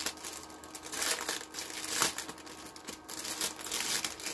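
Plastic packaging crinkling and rustling as it is handled, with a sharp click about two seconds in.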